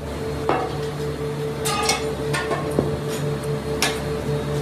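Steel moulding flasks in a sand-casting foundry clanking as they are handled: several separate sharp metallic knocks and clinks over a steady hum.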